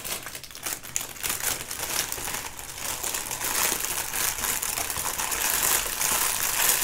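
Small plastic drill bags being crinkled and crumpled up by hand, a dense irregular crackle that gets louder toward the end.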